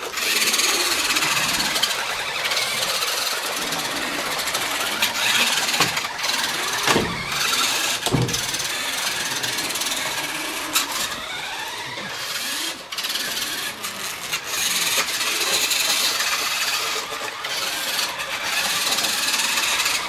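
Small electric motors and gears of toy radio-controlled trucks whining as they drive, the pitch rising and falling as they speed up and slow down, with a couple of knocks about seven and eight seconds in.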